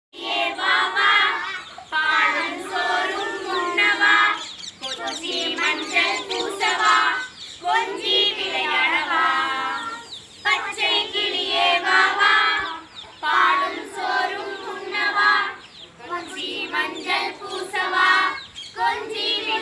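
A group of children singing a Tamil children's song about a parrot together with a young woman, in short phrases of about two seconds with brief breaks between them.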